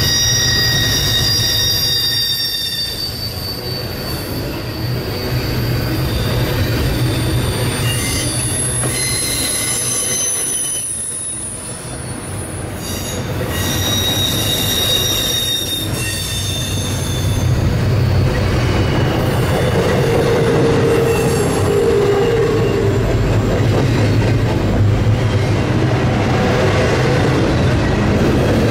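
Freight train cars rolling past, wheels squealing on the rails with high thin tones that come and go over a steady low rumble; in the last third the squeal gives way to a steady rumble and rattle of the cars.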